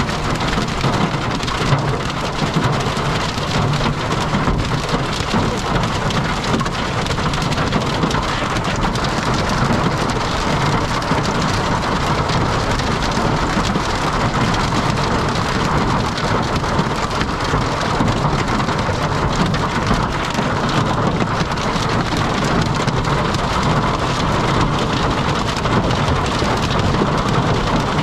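Heavy rain from a severe thunderstorm pouring steadily, a dense, unbroken patter of drops.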